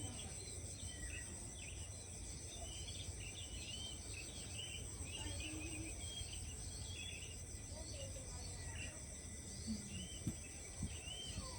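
Insects trilling in a steady high-pitched drone, with many short bird chirps over it and a low rumble underneath. A few soft knocks near the end.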